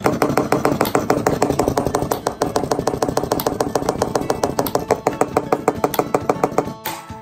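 A vibration solenoid rapidly hammering, many strokes a second, shaking the whole homemade chocolate-faucet box; it is the anti-jam vibrator that shakes loose chocolate stuck in the faucet. It starts suddenly as the toggle switch is flipped and cuts off shortly before the end.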